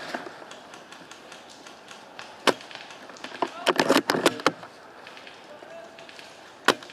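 Airsoft L96 spring bolt-action sniper rifle fired twice, each sharp shot followed about a second later by a quick run of clicks and knocks as the bolt is cycled to re-cock it.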